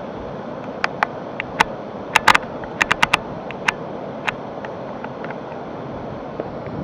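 Steady rushing noise of rain and flash-flood water, with irregular sharp taps close by. The taps come thickly for the first three seconds and thin out after about four.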